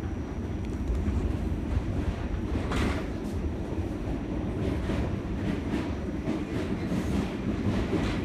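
Subway train running, heard from inside the car: a steady low rumble with a few short clacks from the wheels on the rails.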